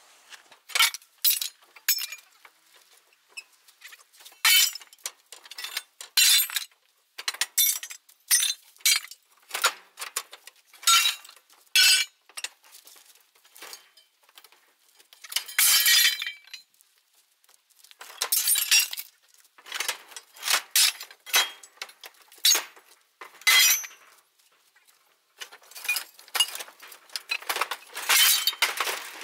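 Scrap iron clattering and clinking in irregular sharp bursts, pieces of metal being handled and dropped onto each other, with a longer run of rattling near the end.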